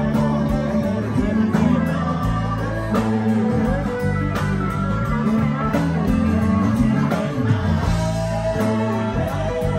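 A live band playing an instrumental stretch, with acoustic and electric guitars over keyboard, bass notes and drums.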